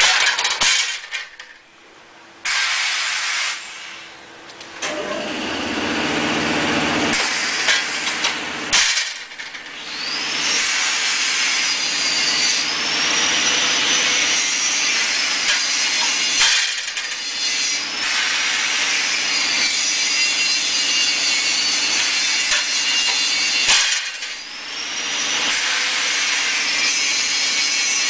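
Pneumatic sheet-metal shear working: sharp clunks from the blade and air cylinder, repeating about every seven seconds, between long stretches of steady hissing air with a faint wavering whistle.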